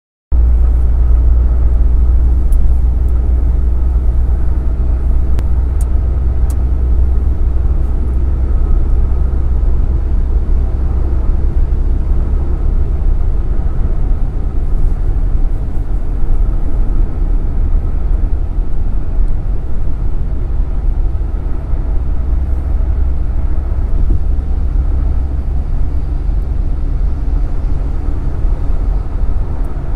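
Steady low rumble of road and engine noise from a car driving at speed, heard inside the cabin while passing through a road tunnel.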